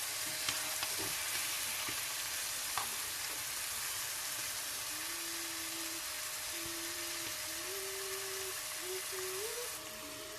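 Chopped vegetables sizzling steadily as they fry in hot oil in a pan, with a few light clicks from stirring.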